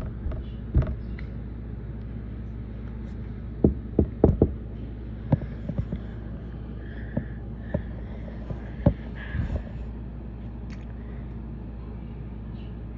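A steady low hum with a scatter of sharp clicks and taps, several close together about four seconds in. A few faint short high tones come between about seven and nine seconds in.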